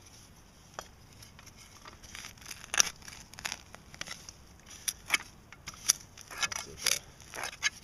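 Gloved hand digging through loose soil, a string of irregular short scrapes and crunches, the loudest about three seconds in.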